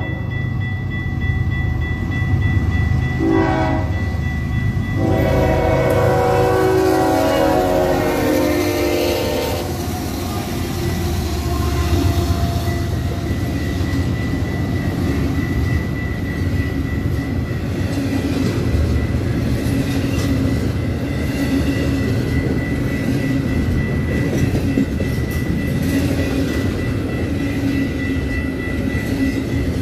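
Diesel locomotive horn sounding in several blasts as the freight train comes up to the crossing, the last blast long, ending about ten seconds in. Then the double-stack container cars rumble and clatter steadily past on the rails.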